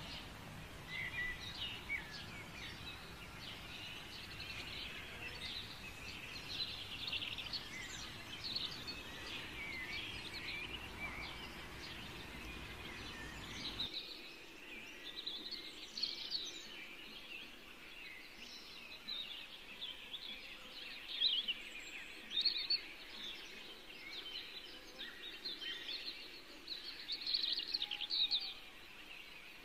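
Small birds chirping and twittering continuously, in many short, quick calls. A low hum underneath stops suddenly about halfway through.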